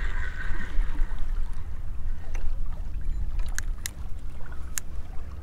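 Wind rumbling on the microphone over small waves lapping at the shoreline, with a few sharp clicks in the second half.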